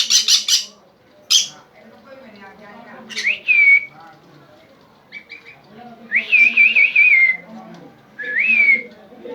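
Caged parrots calling: a quick run of harsh squawks at the start and another squawk about a second later, then three clear whistled calls. The first whistle rises and levels off, the middle one warbles, and the last rises.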